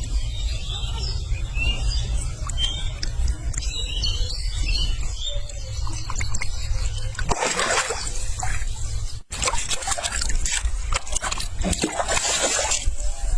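Water splashing in repeated noisy bursts, after a stretch of low wind rumble on the microphone.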